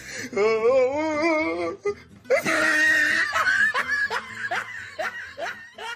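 Laughter over background music: a wavering high laugh first, then after a short break a longer, fuller burst of laughter from about two seconds in.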